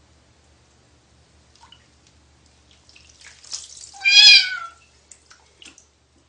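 A cat meows once, loudly, with water splashing just before it; a few small splashes and drips follow.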